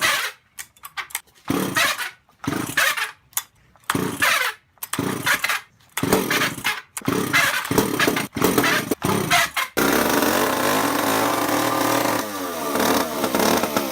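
Two-stroke chainsaw being pull-started: a run of short cranking bursts from repeated cord pulls, then about ten seconds in the engine catches and runs steadily, its pitch sliding down near the end.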